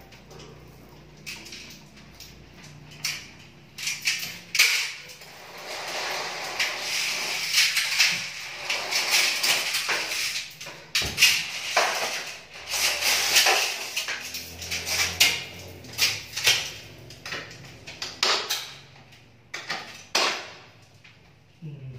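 Clattering and knocking of a window blind's headrail and mounting brackets being handled and fitted overhead: many sharp knocks, with a stretch of scraping in the middle.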